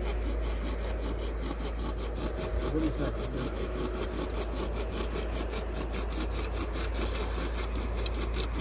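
A hand saw blade cutting through black plastic water pipe in quick, steady back-and-forth strokes.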